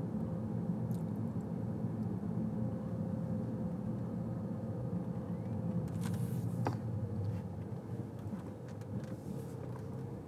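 Steady low road rumble of a moving car, heard from inside the cabin, with a couple of short clicks about six seconds in.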